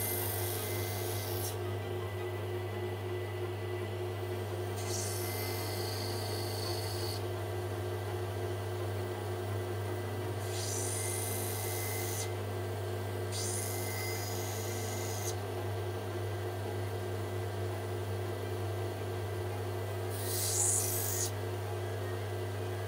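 A cabbing machine's water-fed grinding wheel runs with a steady motor hum while a rough opal is pressed against it in five short passes of one to two seconds each, each a gritty grinding hiss. This is the grinding that takes the grey skin off the stone to expose the colour bar.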